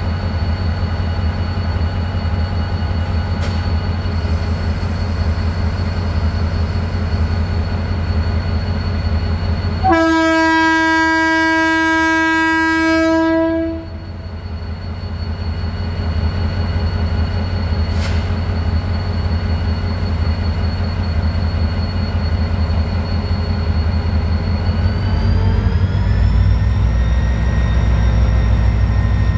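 EMD GT-22CW diesel locomotive's 645 engine idling steadily; about ten seconds in its air horn sounds one long blast of nearly four seconds. Near the end the engine rises in pitch and grows louder as it is throttled up to start the train moving.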